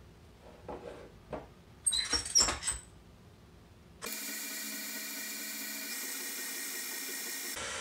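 Clinks of a spatula and mixer paddle against a stainless steel bowl, the loudest a quick ringing cluster about two seconds in. About four seconds in, the stand mixer's motor starts and runs steadily with a whine, then cuts off suddenly near the end.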